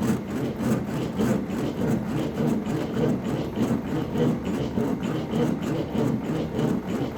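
A tool working a wooden board, a continuous rough scraping noise without a clear pitch.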